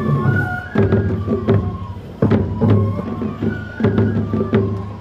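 Japanese festival music for a tiger dance: a transverse bamboo flute playing held notes that step between pitches, over sharp drum strokes in an uneven rhythm.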